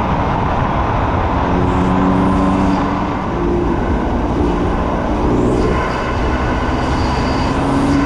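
BMW F80 M3's twin-turbo inline-six with an M Performance titanium exhaust, pulling steadily on a canyon road; its note rises and falls slightly with the throttle, over steady road and wind noise.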